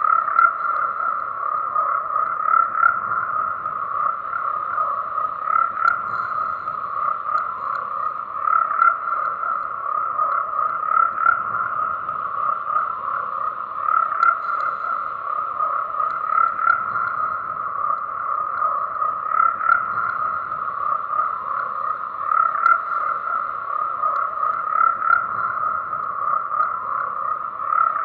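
A dense chorus of many frogs croaking without a break, the calls blending into a steady high buzz, with louder individual calls standing out every two or three seconds.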